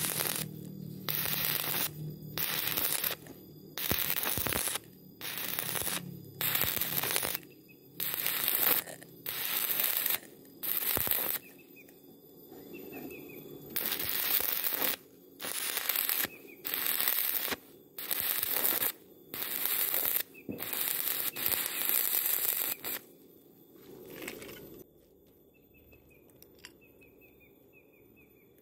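Stick-welding arc crackling and hissing in short bursts of under a second, struck and broken again about eighteen times with brief pauses between. This is stop-start stitch welding on thin galvanized steel tube, used to keep the thin wall from burning through. The bursts stop about 25 seconds in.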